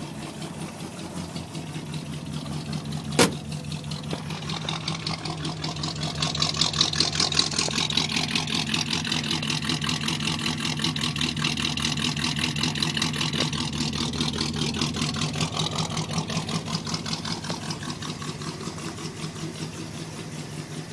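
A 351 Windsor V8 with dual glass-pack exhausts idling steadily with a low rumble, getting louder for several seconds in the middle, then easing off. A single sharp click comes about three seconds in.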